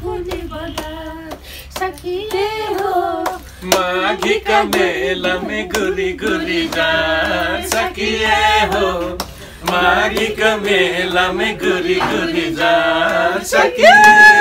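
Several people singing an old Nepali song together, led by an older woman, with no instruments. Hand claps keep time to the singing.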